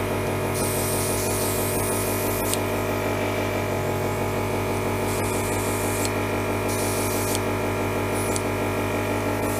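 Airbrush compressor running steadily with a hum and a fast even pulse, while the airbrush hisses in bursts as its trigger is worked: one long spray about half a second in, then several short bursts later on.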